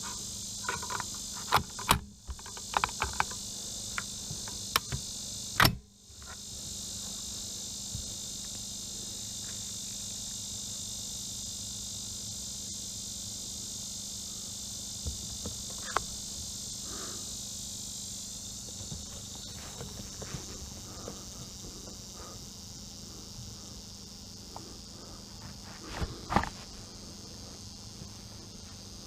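Crickets and other insects chirring steadily in a high band, with a sharp report from an AR-15 rifle shot about six seconds in. Scattered smaller clicks and knocks come before it and later, and a louder knock near the end.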